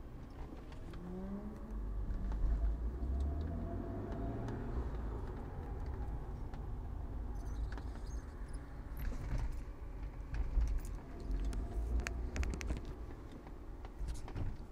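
BMW E36 325i's straight-six engine and road noise while driving, a low steady rumble with the engine note rising early on. Several sharp clicks and rattles come in the second half.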